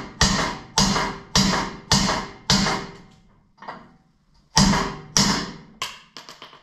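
Hammer blows on a steel punch driving a rusted U-joint bearing cap out of a driveshaft yoke: five strikes about 0.6 s apart, each with a metallic ring, a pause, then two more strikes and a few light clinks near the end. The cap is moving out under the blows.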